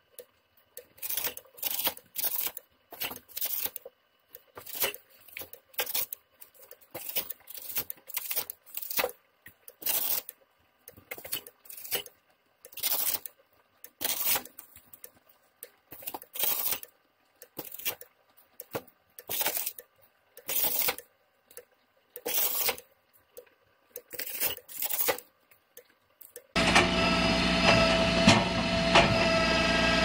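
Small disc-type branch chipper cutting a branch as it is fed in: short, sharp crunching chops at an irregular rate of one or two a second, over a faint steady motor hum. Near the end this gives way abruptly to the loud, steady running engine of a tractor-driven firewood processor.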